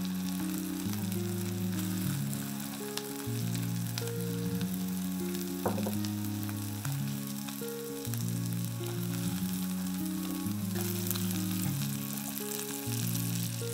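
Pork-belly-wrapped zucchini rolls and grated cheese sizzling in olive oil in a frying pan, with a few small pops, as the leftover cheese crisps alongside the rolls. A soft backing tune plays under the sizzle.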